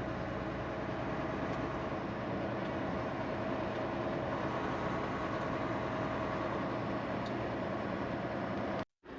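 Semi-truck's diesel engine and road noise while driving, a steady hum. The sound cuts out abruptly near the end.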